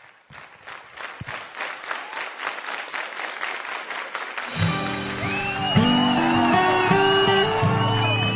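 Hand clapping that thickens into applause, then a song with guitar comes in about four and a half seconds in and carries on.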